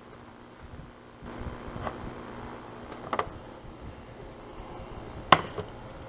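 Quiet handling of tools and parts on a workbench: a faint steady hum with a few light clicks, and one sharp click about five seconds in.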